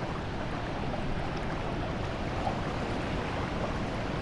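Steady rush of flowing river water around a wading angler, an even noise with no distinct splashes.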